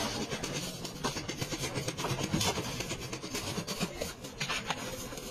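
Rubbing and scattered clicks of a car's wiring harness being pulled and handled against sheet-metal body panel, over a steady din of workshop and engine noise.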